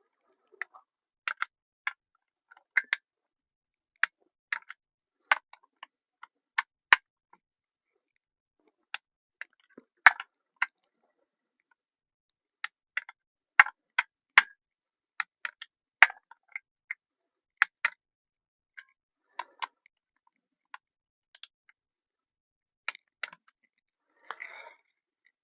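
Scattered sharp clicks and light taps at an irregular pace, from tools and engine parts being handled on the workbench, with a short scrape near the end.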